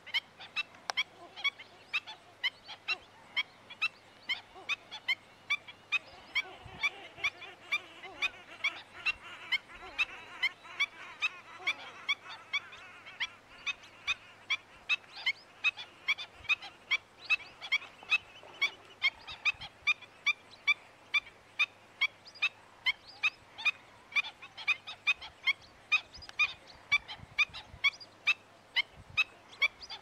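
Greater flamingos giving short goose-like honking calls, repeated steadily about twice a second, with a softer chattering murmur underneath in the middle.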